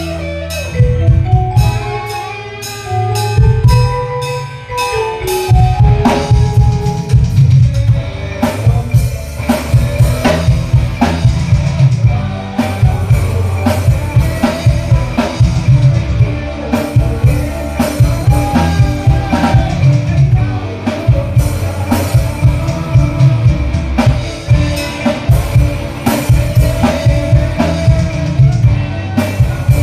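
Background music: a band with drum kit and bass playing a steady beat, with a melodic line in the opening seconds before the drums come in fully.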